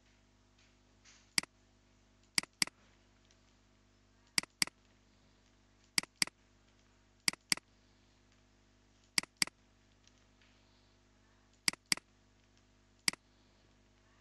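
Computer mouse button clicking, mostly as quick double-clicks that select words in a code editor. There is a single click, then six double-clicks spaced a second or two apart, then one more single click near the end.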